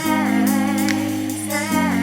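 Background pop music: held chords changing about once in two seconds, with a wordless vocal line sliding down in pitch.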